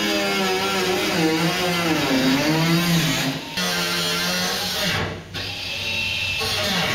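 Cutoff wheel grinding through sheet-steel cab floor, a loud whine that sags and recovers in pitch as the wheel bites and eases, dipping briefly twice.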